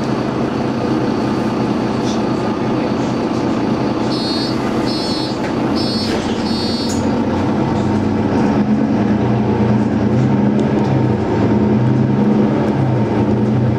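Bus engine running in the cabin at a stop, with a series of four short, high warning beeps about four seconds in as the doors close. From about eight seconds the engine note grows louder as the bus pulls away.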